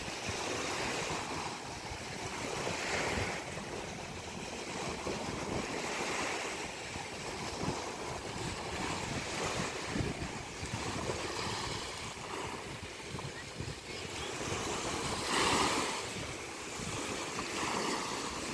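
Small waves washing onto a sandy beach, each wash swelling and fading every few seconds, the loudest one a few seconds before the end. Wind rumbles on the microphone underneath.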